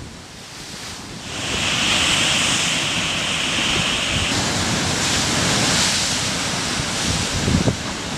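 Ocean surf: a wave breaks about a second in and its wash hisses on, with wind rumbling on the microphone.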